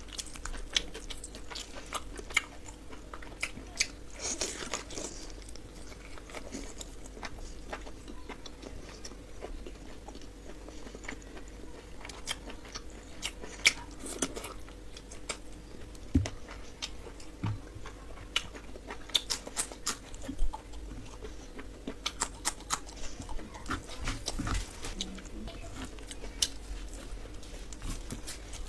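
Close-miked eating sounds: wet chewing, smacking and biting on chicken and rice, with many short sharp clicks and squelches, some louder smacks after the middle and near the end.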